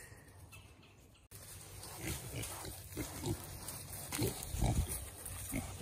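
Several young purebred Berkshire pigs grunting, a run of short separate grunts starting about a second in, the loudest near the end.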